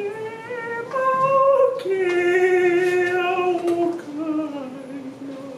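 A single voice singing unaccompanied, a few long held notes that climb over the first two seconds, then hold and slide down toward the end.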